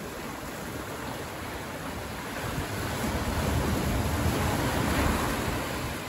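Ocean waves washing in over rocks and up a sandy beach and draining back, a steady rushing wash that swells louder midway and eases near the end.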